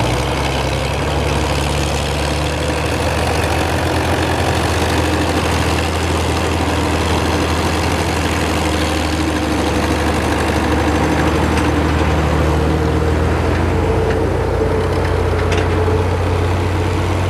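Fiat 850 tractor's diesel engine running steadily under load as it tows a loaded trailer through floodwater, with water churning around the wheels.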